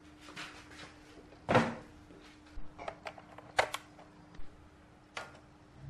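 Sharp plastic clicks and knocks of a power plug being handled and pushed into a power strip socket, with a sharp double click about three and a half seconds in. A louder rustling thump comes about a second and a half in, and a faint steady hum runs underneath.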